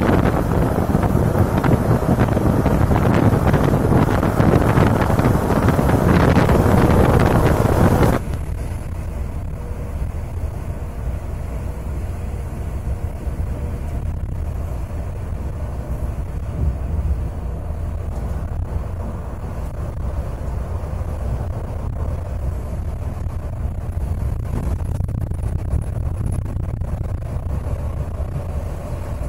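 Scania K410 coach running at speed, heard from on board. For the first eight seconds a loud rush of wind and road noise at the side window, then it cuts suddenly to a quieter, steady engine and road drone inside the cabin.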